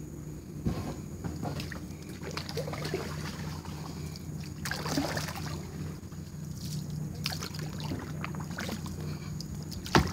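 Kayak paddle strokes splashing and dripping in shallow water, with irregular swishes and small clicks, and a sharp knock just before the end.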